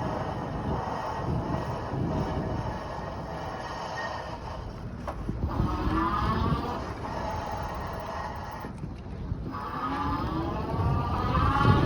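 Lectric XPedition e-bike motor whining under power while riding, muffled through a pocket, over low wind and road rumble. The whine's pitch glides up and down with speed and fades briefly twice before rising again near the end. The owner finds it much louder than it should be and is unsure whether that is normal.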